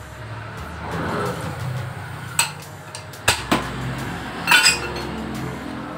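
A few sharp metallic clinks and knocks of car parts and tools being handled in a workshop, the loudest cluster near the end, over a low steady hum.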